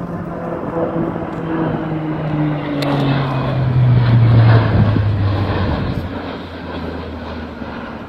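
Dash 8 turboprop airliner flying low past overhead: its propeller drone falls steadily in pitch as it goes by, loudest about four to five seconds in, then easing off as it moves away.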